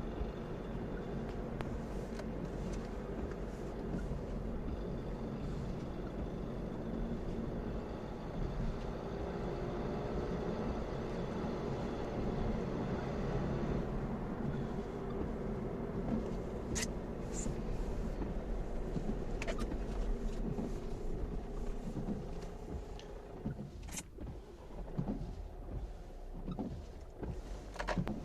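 Opel Astra K 1.6 CDTI four-cylinder turbodiesel running steadily, with the rattle the owner puts down to the timing chain. Near the end the steady running sound fades and a few sharp clicks and knocks follow.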